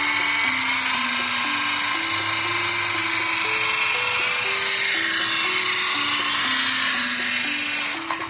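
Toy remote-control helicopter drone's small electric motors and rotors whining at high speed in flight. The whine stops suddenly near the end.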